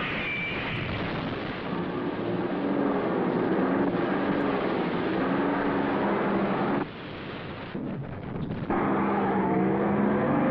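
Old motor car engine running, with a few wavering tones over a dense noise. It drops back for about two seconds around seven seconds in, then comes back at the same level.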